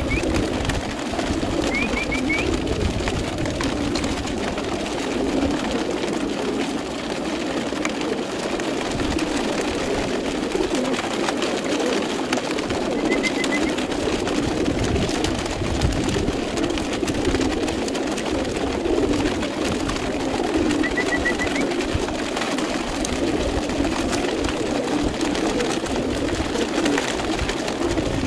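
Many racing pigeons cooing together in their transport crates, a dense, steady mass of low coos, with a few short high chirps now and then.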